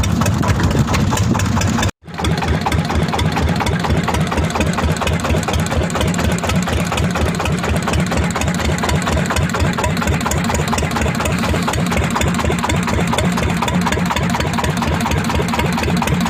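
Boat engine running steadily with an even pulse, cut off for an instant about two seconds in.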